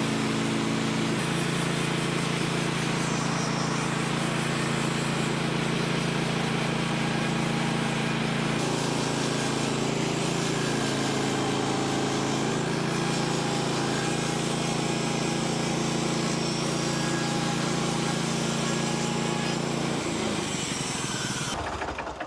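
Woodland Mills bandsaw sawmill's gas engine running at a steady speed while the blade edges red oak boards, with the pitch shifting slightly as the load changes. The engine shuts off near the end.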